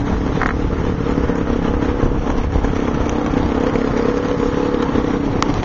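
A steady engine hum over a constant low rumble. The hum cuts off with a click near the end.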